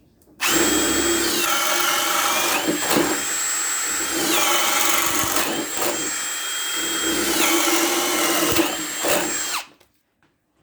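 Ryobi One+ HP brushless hammer drill on speed 2 driving a 3/4-inch spade bit through three holes in a row. The motor whine runs without a break and drops in pitch three times as the bit bites and bogs under load, then rises again as it breaks through. The drill is running very smoothly.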